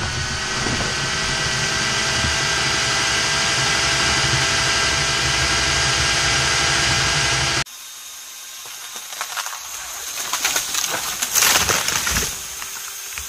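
Remote-controlled chainsaw mounted on a tree trunk running steadily at high revs just after cutting through a limb. About eight seconds in, it stops abruptly, and a quieter stretch follows with a few louder rushes of noise.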